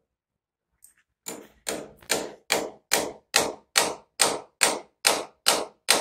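Hammer driving a nail into a wall. A light tap about a second in is followed by a steady run of about a dozen blows, a little over two a second, with the first few softer than the rest.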